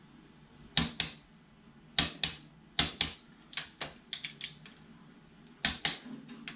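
Torque wrench set to 50 foot-pounds clicking on vise fasteners: sharp clicks, mostly in quick pairs, repeated every second or so, with a brief run of several clicks a little past the middle.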